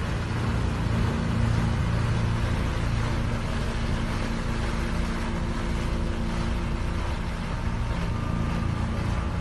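Tanker truck's engine running steadily under a continuous rushing noise as thick black liquid sprays high out of the top of the tank.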